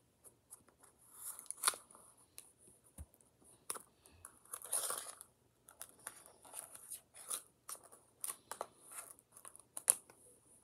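Scissors scooping and scraping kinetic sand out of its container: irregular soft crunches and scrapes, with a few sharper clicks.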